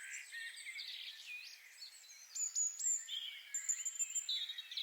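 Several songbirds singing at once: overlapping chirps, whistles and trills, with a quick trill near the end.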